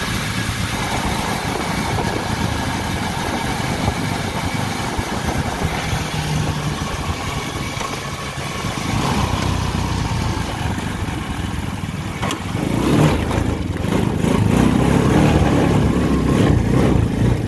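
A mini Jeep's swapped-in 150cc single-cylinder pit bike engine running steadily under way. About thirteen seconds in it gets louder and fuller.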